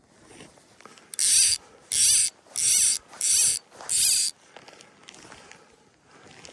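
Fly reel's click-and-pawl ratchet buzzing as line is cranked in: five short bursts of rapid clicking, about two-thirds of a second apart.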